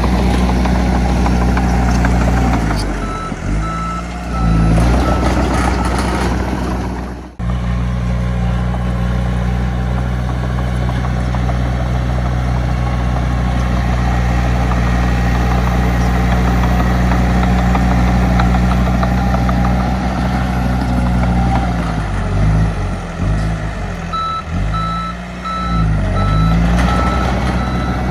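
Heavy diesel earthmoving machinery running steadily under load, its engine speed dipping and recovering a few times, with a reversing alarm beeping in two spells, once a few seconds in and again near the end. The sound breaks off for an instant about seven seconds in.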